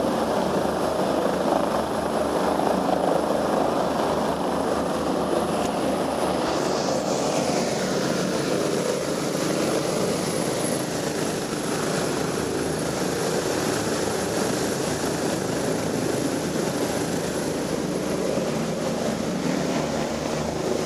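Rescue helicopter lifting off and climbing away: a steady, loud rotor and turbine noise with a low rhythmic beat from the blades.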